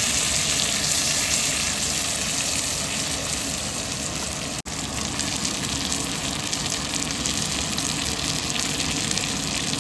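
Food sizzling in a hot frying pan: a steady, dense hiss with fine crackle, broken by a momentary dropout about halfway.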